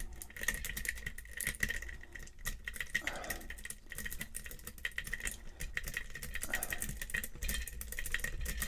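A lock pick raking the pin tumblers of a challenge lock, with rapid irregular clicking and rattling of the pins as the rake is worked in and out of the keyway.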